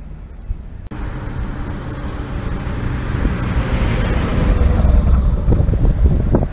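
Road traffic passing close by: a motorhome's tyre and engine noise swells as it drives past, then a car's engine rumbles louder and uneven as it approaches near the end.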